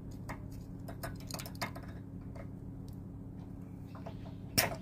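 Small metallic clicks and scrapes of pliers working a steel pin into a towing hook's bracket, with one sharper click near the end, over a steady low hum.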